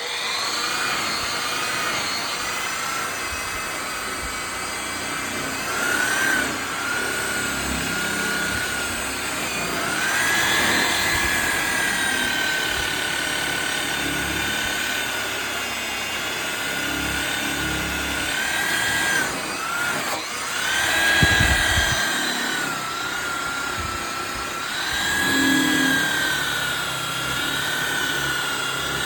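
Electric buffing polisher running continuously on a car bumper, a high motor whine whose pitch sags and recovers several times as the pad is pressed into the work, with a brief dip about twenty seconds in.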